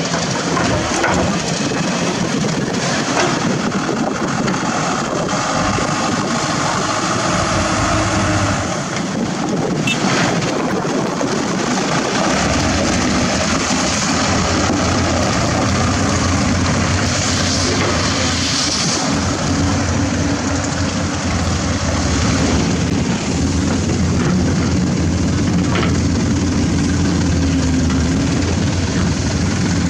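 Heavy diesel engines running steadily: an excavator at work, then, from about twelve seconds in, a loaded dump truck's diesel engine close by with a deeper, heavier rumble as it drives off.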